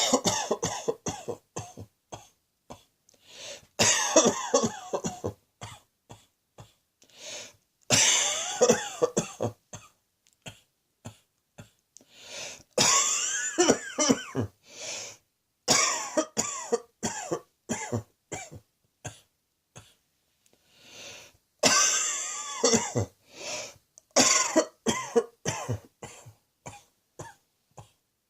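A person coughing in a series of fits. Each fit is a run of several quick, loud coughs, and short quiet gaps fall between the fits.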